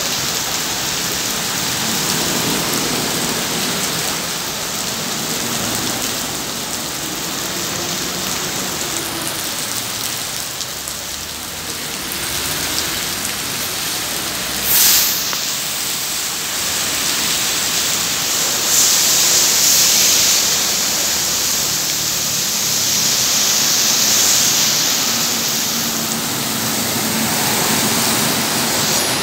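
Heavy rain falling steadily on a flooded street, with the hiss and splash of cars and buses driving through standing water. There is a brief loud burst of hiss about halfway through. Near the end a bus engine hums as the bus passes close, its tyres throwing up water.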